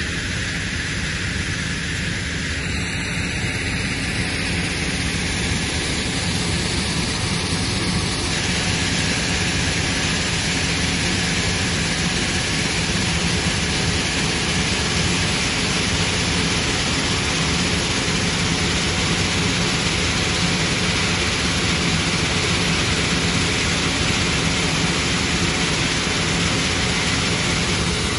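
Sand-making plant running: a 300 hp vertical shaft impact (VSI) crusher, its conveyor belts and vibrating screen make a steady dense hiss over a low hum. The hiss grows stronger about eight seconds in.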